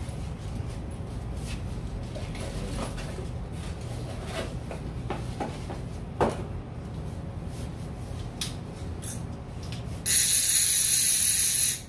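A new Avet conventional fishing reel and its packaging being handled, with light rustles and clicks. About ten seconds in, the reel's clicker ratchets loudly as the spool is turned: a fast, even rattle for about two seconds that stops abruptly.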